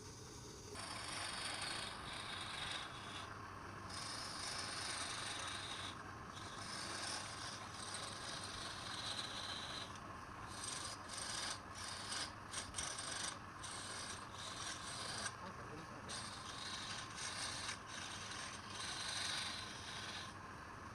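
Wood turning on a lathe with a tool or abrasive against it: a steady scraping, rasping hiss that breaks off in many short pauses, most often in the middle.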